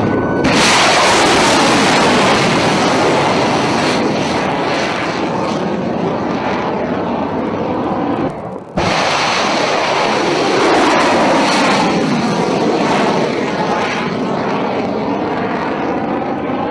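A missile's rocket motor firing as it is launched from a warship, a loud rushing noise that starts suddenly and sweeps down in pitch as the missile climbs away. It breaks off briefly about halfway through, then a second rushing sweep of the same kind follows.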